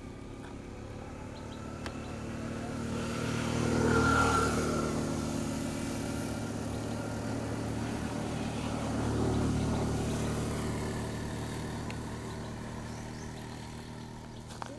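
A motor vehicle's engine running steadily, growing louder about four seconds in and again around nine seconds, then fading away.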